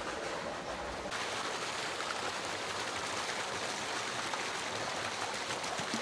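Steady rush of running water in concrete trout-farm raceways, where the water is kept moving to aerate the fish.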